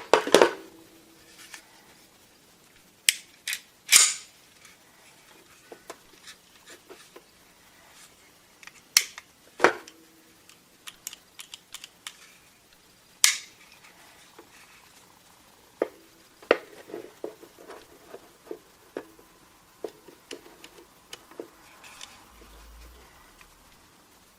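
Ruger-57 pistol being handled: irregular sharp metallic clicks and clacks of its parts, about a dozen loud ones with fainter ticks between, loudest near the start and about four seconds in.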